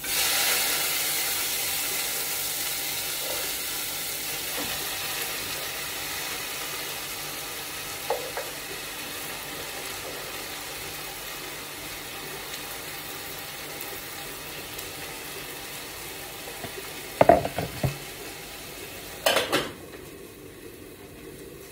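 Callaloo tipped into a hot pot and sizzling: a loud hiss that starts suddenly and slowly fades, with a few knocks of a spoon against the pot later on.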